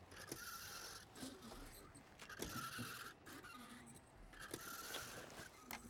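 Quiet background ambience with a few faint scrapes and clicks.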